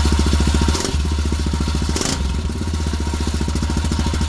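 Yamaha Grizzly 660 ATV's single-cylinder four-stroke engine running steadily, with a metallic rattle from the exhaust, flaring briefly about one and two seconds in. The rattle comes from a broken baffle lying loose inside the muffler.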